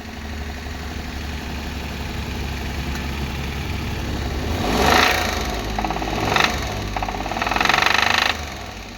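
Suzuki K6A three-cylinder engine running with a knock, which the owner hears even though the oil level is fine. The engine is revved in short surges about halfway through and again near the end, then drops back.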